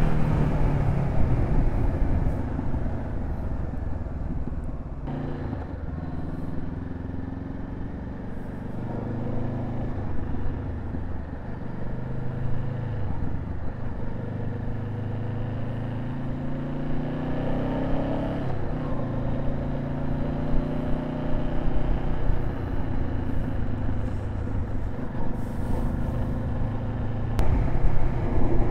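Honda CB500F parallel-twin motorcycle engine under way, heard with steady wind rush. Its pitch falls at the start as the bike slows, then climbs in stretches with drops between them as it accelerates and shifts gears.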